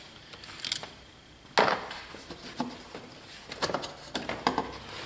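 A hose clamp being popped off and the intercooler's charge-air hose worked loose by hand: a sharp clack about one and a half seconds in, then a run of short clicks and knocks.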